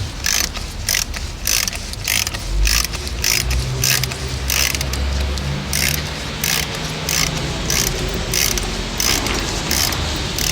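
Socket ratchet wrench clicking in quick, even strokes, about two clicks a second, as a bolt is run in.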